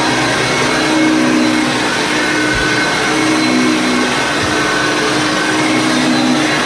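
Vintage Hoover Concept 1 upright vacuum cleaner running steadily, its motor hum shifting slightly in pitch.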